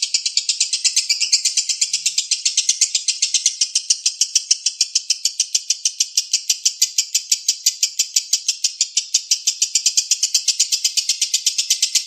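Lovebird ngekek in the 'konslet' style: one long, unbroken chattering trill of rapid, evenly spaced high 'kek' notes, about seven a second, with no pause for breath.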